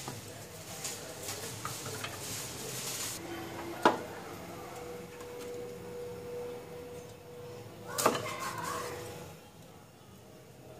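Cleaver working on a wooden chopping board: scraping at first, then a sharp knock about four seconds in and another about eight seconds in.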